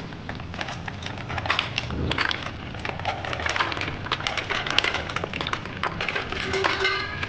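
Green mussel shells clicking and clacking against one another and against a metal bowl as they are tipped into a small electric cooker, many sharp clicks in quick, uneven succession.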